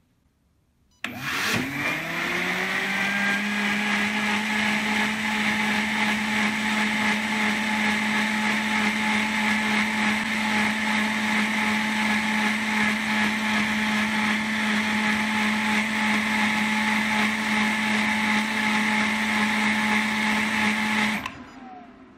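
Bugatti Vento high-speed blender starting about a second in and quickly spinning up. It then runs steadily at speed 50, about 13,000 rpm, through a timed 20-second program, churning a jar of liquid. Near the end it stops and its pitch falls as the motor winds down.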